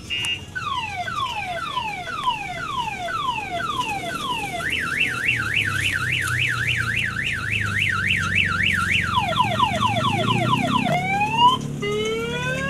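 Electronic siren on a kiddie train ride cycling through its tones: repeated falling sweeps, then a fast up-and-down warble, then quicker falling sweeps, and slow rising whoops near the end, over a low hum.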